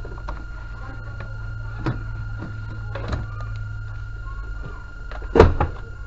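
Steady low electrical hum with a thin steady high tone over it, broken by a few knocks and bumps; the loudest comes about five and a half seconds in.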